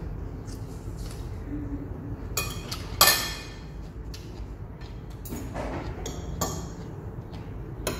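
Metal spoon and fork clinking and scraping against a ceramic plate during a meal: several short clinks, the loudest a ringing clink about three seconds in.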